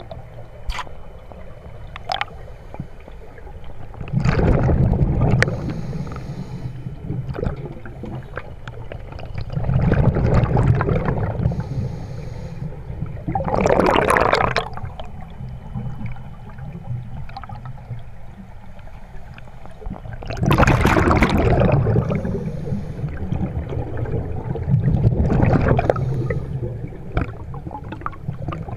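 A scuba diver's regulator heard underwater: five bursts of exhaled bubbles, each a low rumbling gurgle lasting one to two seconds, a few seconds apart, with a quieter murmur of water in between.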